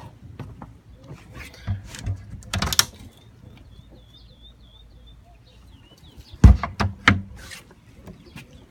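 A series of knocks and clicks, the loudest two about six and a half and seven seconds in, with a bird chirping faintly in between.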